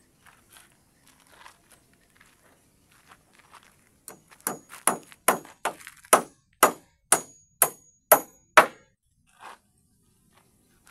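Hammer driving a nail into timber planking: after a few light taps, about a dozen sharp blows come roughly two a second, each with a short metallic ping, then one softer knock.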